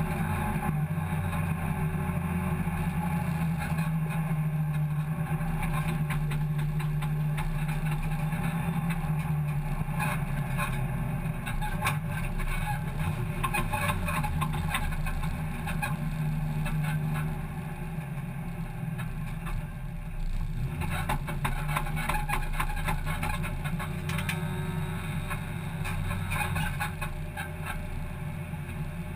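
Hot hatch race car's engine running at steady low revs, heard from inside the cabin as the car is driven slowly. It gets quieter a little past halfway.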